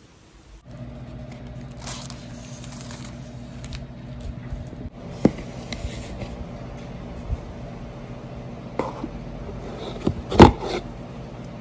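Hands handling an Apple laptop box and its white power adapter: light scraping and a few knocks of plastic and paperboard, the sharpest one about ten and a half seconds in as the adapter is lifted from its moulded tray. Under it runs a steady low hum.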